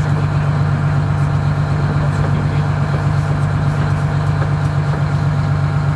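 Fishing boat's engine running steadily at low speed, a constant low hum.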